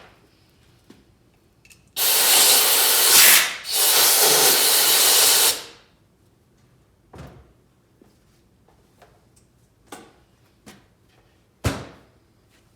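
A shop tool runs in two loud bursts of hissing noise, about three and a half seconds in all, followed by scattered light clicks and a sharper knock near the end.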